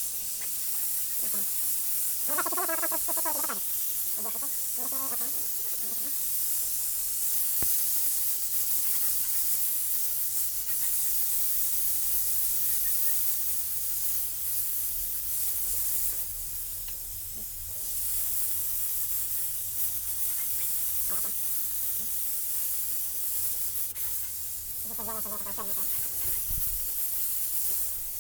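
Gas torch flame hissing steadily while scorching the dustpan's handle. The hiss eases for a couple of seconds midway, and a voice is heard briefly a few times.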